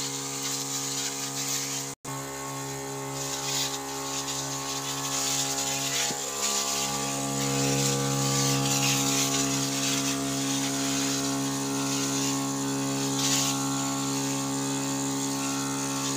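ASPEE HiVel battery knapsack sprayer's electric pump humming steadily, with the hiss of the spray. The hum grows stronger about seven seconds in.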